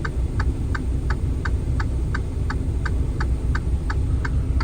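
Steady ticking of a truck's turn-signal or hazard flasher, about three clicks a second, over the low steady rumble of the idling semi-truck engine, heard inside the cab.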